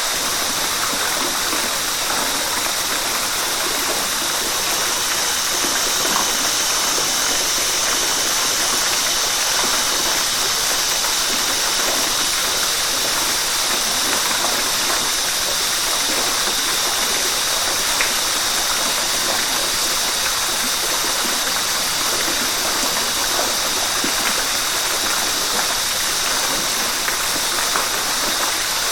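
River water rushing steadily over rocks: a constant, even hiss, bright and high-pitched, with a few faint splashes now and then.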